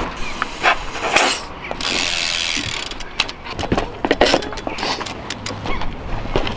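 Clicks and handling noises of work on a Rocker mini BMX's rear wheel, with a short hiss of air about two seconds in as the floor pump is used on the tyre valve, then the ticking of the freshly fitted cassette hub freewheeling as the bike is moved.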